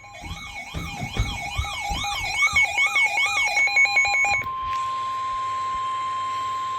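Weather radio alert tones: a warbling siren-like alarm rising and falling about twice a second over steady tones, then, from about four and a half seconds in, the single steady 1050 Hz NOAA Weather Radio alert tone that precedes a broadcast severe weather warning.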